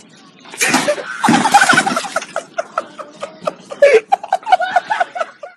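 People laughing hard: a loud outburst of shrieking laughter about half a second in, then a steady run of rapid ha-ha laughs that stops just before the end.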